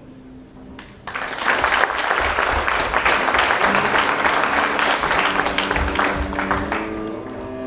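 Audience applauding, breaking out suddenly about a second in and tapering off near the end, over background music.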